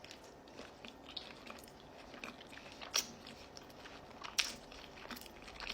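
A person biting into and chewing an egg topped with pepperoni and garlic and herb dip, quietly, with scattered sharp little clicks, the clearest about halfway through and a second or so later.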